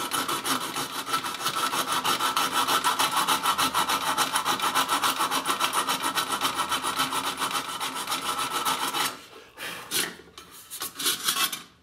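A small hand file scraping back and forth on the tin-plate body of a toy car in quick, even strokes, smoothing the metal where dents were hammered out. The steady filing stops about nine seconds in, followed by a few lighter scrapes.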